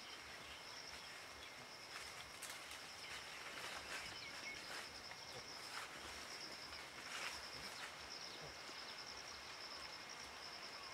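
Faint forest ambience: an insect keeps up a steady, high-pitched pulsing trill, with a few scattered light clicks or rustles.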